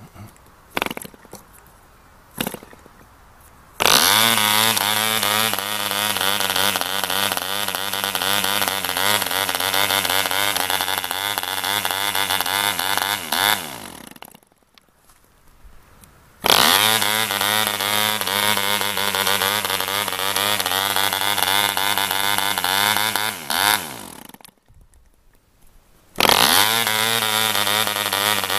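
ED Mk IV 3.46 model diesel engine, set rich and under-compressed and choked by a finger over the air intake, catching at once when the propeller is flicked. It runs steadily for about ten seconds, slows and stops, and this happens twice before a third start near the end. A few light clicks of hand-turning come before the first start.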